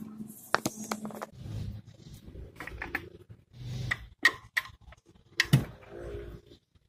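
Scattered sharp clicks, taps and light knocks of hands and parts being handled at a car engine's oil filler after topping up the oil, with a louder knock about five and a half seconds in.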